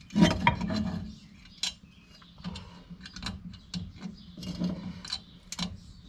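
Metal clinking and rattling of drum brake coil springs and shoes being handled and fitted onto the backing plate, with a louder clatter in the first second and scattered sharp clicks after it.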